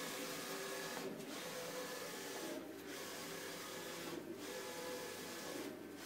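Wide-format inkjet printer printing a banner: a steady mechanical run with a brief dip about every second and a half.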